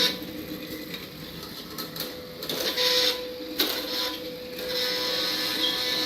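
Small electric drive motors of a robot rover whirring, with a steady whine, in several spurts that start and stop.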